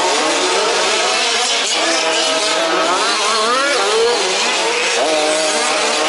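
Several 1/5-scale off-road RC trucks' small two-stroke petrol engines buzzing together, each revving up and down as it races round the track.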